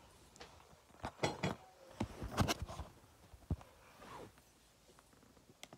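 Handling noise from a phone camera being picked up and turned: a scatter of short knocks and rustles, bunched about a second in and again around two to three seconds in.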